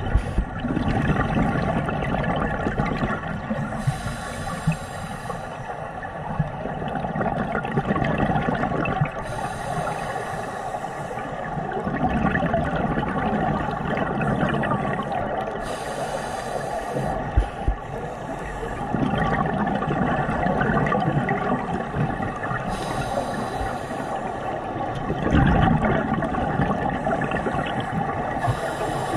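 Scuba diver's regulator breathing heard underwater, with exhaled bubbles gurgling up in a burst every five or six seconds over a steady underwater background.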